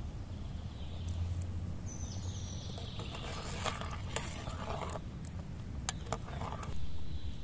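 Rice cooking in a pot of steaming water over a wood fire while being stirred with a wooden spoon, with several sharp knocks of the spoon against the pot in the second half.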